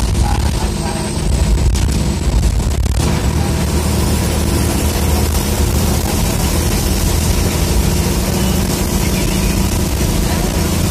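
Government bus's diesel engine running steadily as the bus drives along, heard from inside the driver's cabin, with road noise. A few light knocks or rattles come about two seconds in.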